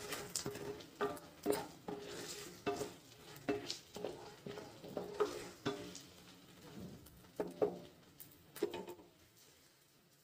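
A wooden spatula scrapes and stirs chopped onion, chana dal and green chillies frying in ghee in a nonstick kadai, with a light sizzle. The stirring strokes are irregular and stop about nine seconds in.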